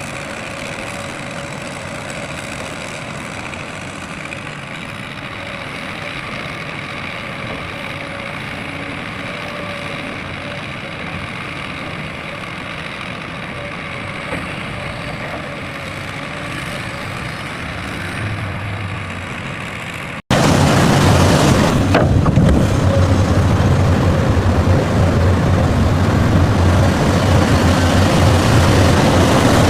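Heavy diesel engine running steadily. About twenty seconds in there is an abrupt cut to a louder, deeper engine.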